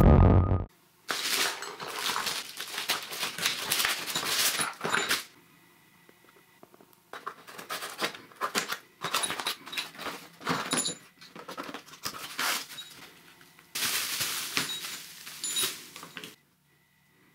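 Electronic intro music with a low hum cuts off in the first second. Then a cardboard parcel is cut open with scissors: the blade scraping and crackling through the packing tape and the cardboard rustling and scraping in three bursts of noise, with two short pauses.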